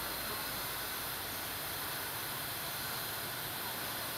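Steady high hiss of outdoor background noise with no separate events; no sound from the grooming monkeys stands out.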